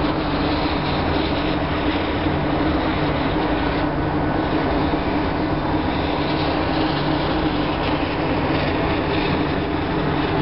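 Steady running noise of a moving vehicle: an even rumble with a constant low hum, unbroken throughout.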